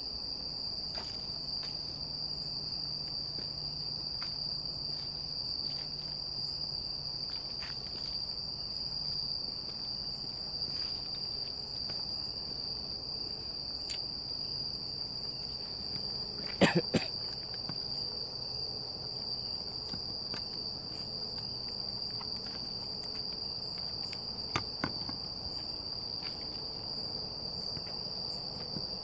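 Night insects in the forest keep up a steady, high-pitched chirring. Two sharp clicks cut through it, the louder one about seventeen seconds in and another near twenty-five seconds.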